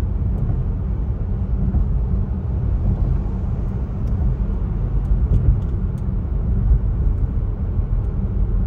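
Steady low road rumble inside a moving car's cabin: tyre and engine noise at highway speed, with a few faint ticks.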